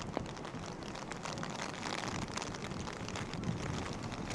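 Rain falling and pattering in many small ticks, with a steady low rumble underneath that grows a little near the end.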